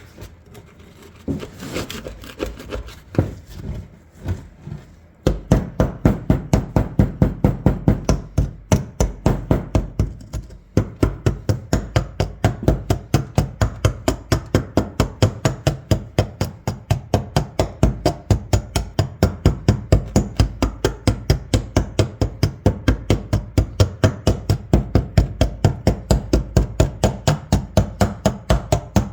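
Fast, even knocking of a hand tool against the old shotgun's barrels, about four strikes a second, as packed gunk is chipped out from between them with a screwdriver blade. A few scattered knocks come first, and the steady run starts about five seconds in, with a short break near the tenth second.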